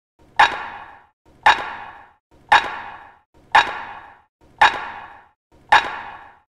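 Clock ticking sound effect: six loud ticks about a second apart, each with a short ringing tail.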